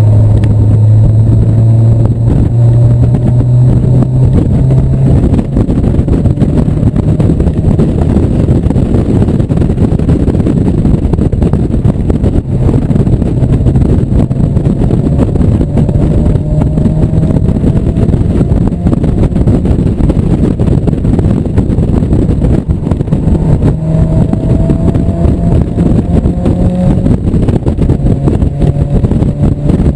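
1997 Mazda Miata's 1.8-litre four-cylinder engine running hard on a racetrack, its note climbing slowly in several long pulls as the car accelerates out of corners. A steady rush of wind and road noise from the open-top cockpit runs under it.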